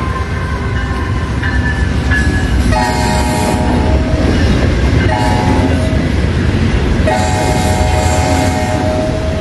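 Locomotive horn sounding three blasts (a first, a shorter second, and a longer third that is still going at the end), over the steady rumble of a passing train.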